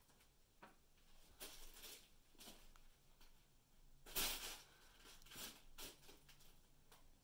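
Fabric cat tunnel crinkling and rustling in several short bursts as a cat noses and paws at its opening, the loudest about four seconds in.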